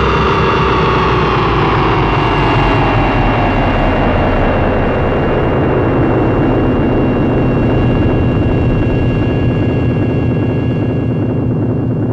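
Retro science-fiction spacecraft engine sound effect: a loud, steady rumble under a high steady whine, with a tone that falls in pitch over the first six seconds and then holds low.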